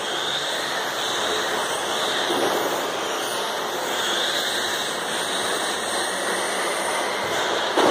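Radio-controlled model cars running laps on a carpet track: a steady whirring hiss of motors and tyres that swells several times as cars pass. A sudden knock comes right at the end.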